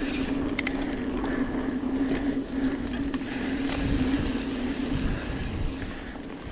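Mountain bike riding along dirt singletrack: a steady hum with rushing noise, and a couple of sharp clicks about half a second in.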